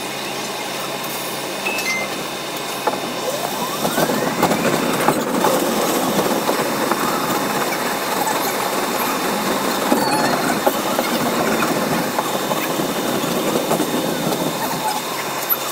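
Bombardier R62A subway train running on elevated track: steady wheel-on-rail running noise, with a brief rising whine about four seconds in.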